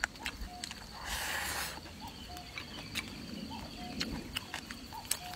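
Close-up eating sounds: chewing and lip smacks, with chopsticks clicking against a ceramic bowl of rice and chicken feet, and a short hissy slurp about a second in. A faint short chirp repeats about once a second behind it.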